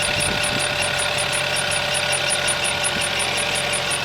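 Mazda CX-7 engine idling with a steady thin whistle and a fast light ticking, about five ticks a second. The whistle is the squeak being traced, which the owner suspects comes from a valve in the engine bay.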